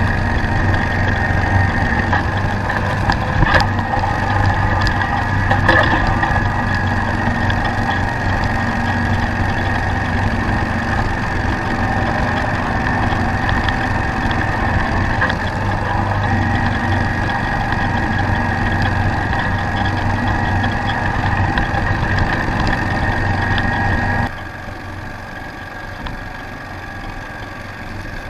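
Craftsman YTS4500 lawn tractor's 26 hp engine running steadily while driving its 42-inch snow thrower, with a steady high whine over the engine hum and two sharp knocks within the first six seconds. About 24 seconds in, the sound drops suddenly to a quieter level.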